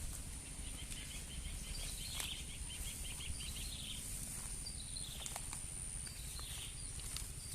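Insect-filled outdoor ambience: a steady high-pitched insect drone, with a quick run of chirps, about six a second, starting about a second in and lasting a couple of seconds, over a low rumble with a few faint clicks.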